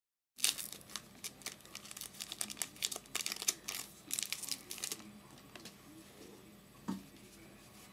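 A 2008 Topps Allen & Ginter trading card pack wrapper crinkling and tearing as it is opened by hand: a quick run of sharp crackles for the first few seconds, then quieter handling with a single click near the end.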